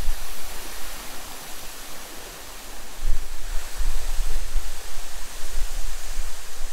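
Waterfall rushing with a steady, even hiss, with gusty wind rumbling on the microphone; the rumble eases off for a couple of seconds about a second in.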